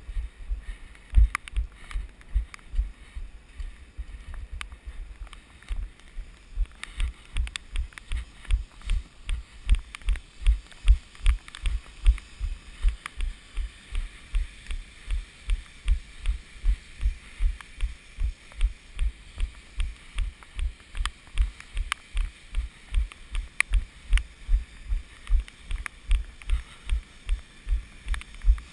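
Running footsteps: a steady rhythm of low thuds, nearly three a second, growing more even from about a quarter of the way in.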